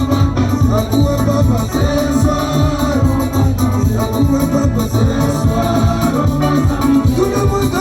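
A song: voices singing over a band with a steady drum beat and strong bass.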